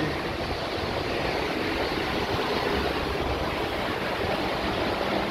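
Steady noise of road traffic, an even rushing sound with no single vehicle standing out.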